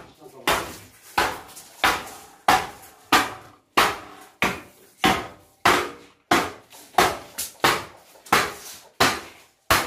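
Steady hammering: hard, sharp blows about one and a half a second, each ringing briefly.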